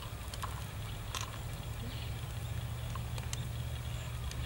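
Charcoal fire under a spit-roasting whole pig, giving scattered sharp crackles and pops at irregular times over a steady low rumble.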